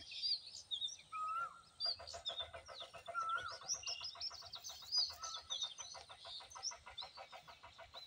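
Several birds chirping and calling, with quick high chirps and a short wavering whistle repeated three times. From about two seconds in, a fast, even pulsing trill runs on beneath them.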